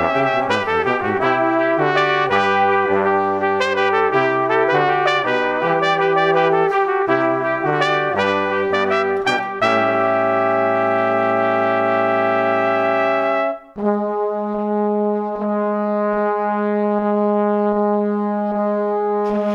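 Brass band music. A lively run of short notes leads into a long held chord about halfway through. The chord breaks off briefly and is followed by another sustained chord.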